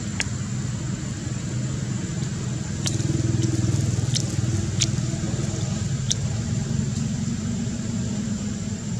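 Low, steady rumble of distant road traffic, louder for a couple of seconds about three seconds in, with a few sharp clicks over it.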